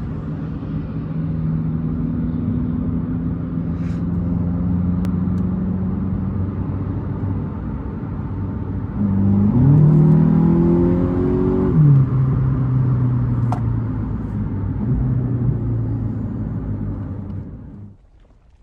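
Volkswagen Golf 8 GTI's 2.0-litre turbocharged four-cylinder petrol engine running at a steady note. About nine seconds in, the revs rise for about three seconds, then drop to a lower steady note that fades out near the end.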